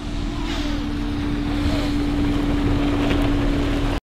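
Ford Bronco Sport Sasquatch SUV driving along a dirt trail, its engine running at a steady pitch over wind and road rumble, growing louder as it approaches. The sound cuts off suddenly just before the end.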